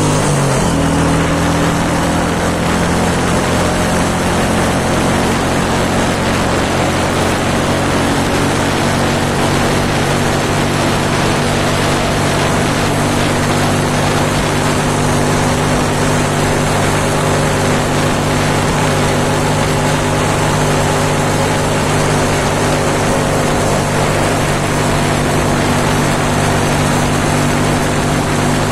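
Motorcycle engine running steadily at cruising speed, heard from the rider's seat, its pitch dipping briefly just after the start and then holding level. A steady rush of wind and road noise runs under it.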